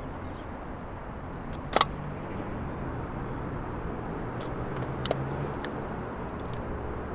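Outdoor background with a steady low rumble of distant road traffic, and a few sharp clicks, the loudest about two seconds in.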